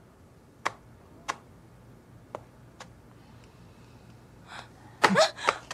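A few sharp, spaced footsteps on a wooden gym floor, then near the end a brief voiced gasp or exclamation.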